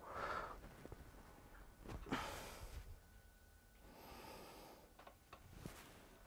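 Quiet, with a few soft nasal breaths and faint small clicks of handling as the resin vat's thumb screws are undone.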